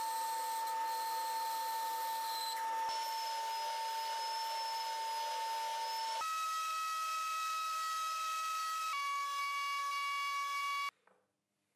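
A run of woodworking power tools shaping black MDF knobs, each a steady whine that jumps in pitch at every edit. First a band saw cutting the blanks, then a sanding drum smoothing the curves, then a trim router with a chamfer bit in the router table. The sound cuts off abruptly about 11 seconds in.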